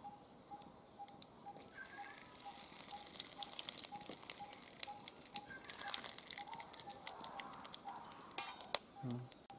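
Cumin seeds and whole spices sizzling and crackling in hot mustard oil in an aluminium kadai. The crackle grows busier from about two and a half seconds in, once cloves, cardamom, cinnamon and bay leaf join the cumin. There is a sharp knock near the end, and a faint high peep repeats about twice a second behind the frying.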